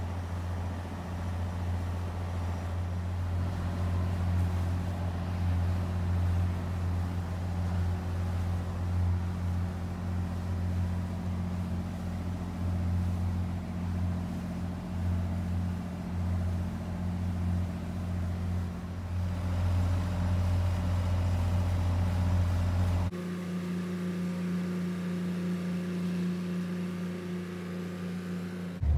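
Ferry boat's engine droning steadily, heard from inside the cabin. About 23 seconds in it changes abruptly to a lighter, slightly quieter drone without the deepest rumble.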